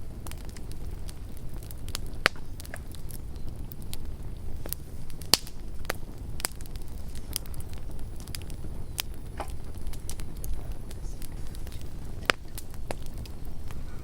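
Campfire crackling: irregular sharp pops and snaps over a low steady rumble, the loudest pops a little over 2 s in, around 5 s and near 12 s.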